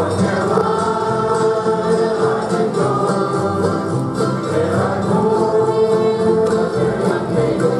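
A large group of voices singing together in chorus in long held notes, backed by an acoustic string band of guitars, mandolins and upright basses.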